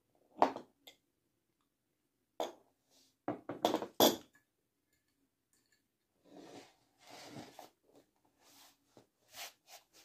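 Metal vacuum cleaner motors being set down and handled on a tile floor: a series of short knocks and clinks, loudest about four seconds in, with softer scraping and rustling later and a few more clicks near the end.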